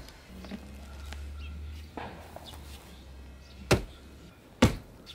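Axe chopping into a log stump: two sharp chops about a second apart in the second half, with a fainter knock a couple of seconds in.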